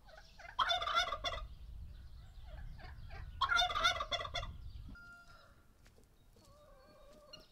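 A turkey gobbling twice, each gobble about a second long, about three seconds apart, followed by fainter bird calls.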